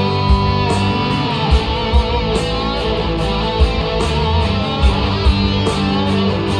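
Live rock band playing an instrumental passage with no vocals: two electric guitars, one carrying a lead line that bends in pitch, over a steady drumbeat.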